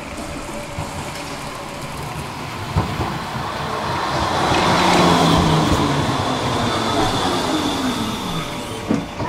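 Low-floor tram rolling in along wet rails to a stop. The rolling noise swells to its loudest about five seconds in, with a clunk a little before, then a whine falls in pitch as the tram slows alongside the platform.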